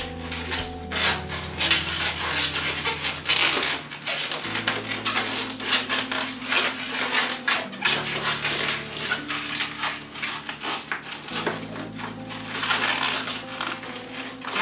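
Latex balloons rubbing and squeaking against each other and against hands as balloon pieces are twisted and fitted together, an irregular run of crackly scrapes and squeaks.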